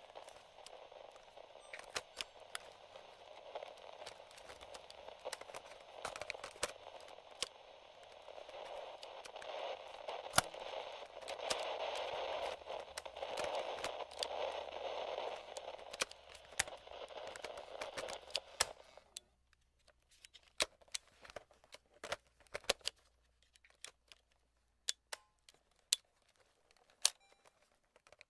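Vintage FM/AM radio static with scattered crackles and pops. The static cuts off abruptly about two-thirds of the way through, leaving only sparse clicks and crackles.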